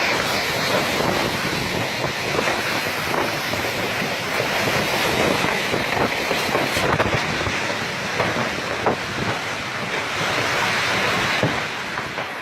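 Strong storm wind blowing steadily and buffeting the microphone, with scattered short clatters and knocks throughout.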